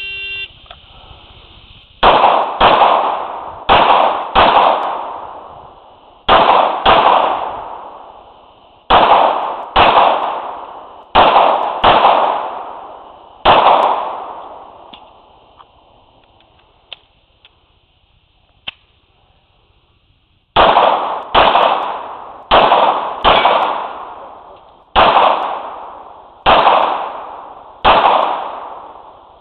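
A shot timer beeps, then a pistol fires about twenty shots, mostly in quick pairs, each echoing away. There is a pause of several seconds midway with only faint clicks, and then a second string of paired shots.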